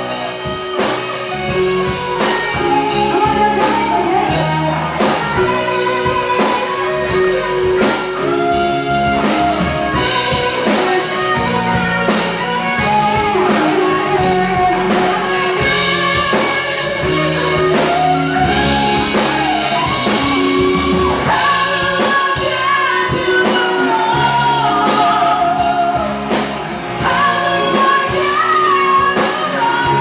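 Live band playing a song: singing over electric guitar and electric bass.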